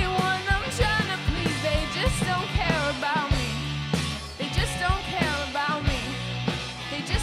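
Rock band playing a song: a singer over electric guitar, bass and drums with a steady beat.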